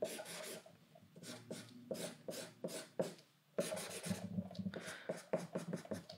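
Felt-tip Sharpie marker drawing on paper: a run of short scratching strokes, a brief pause about three seconds in, then quicker strokes.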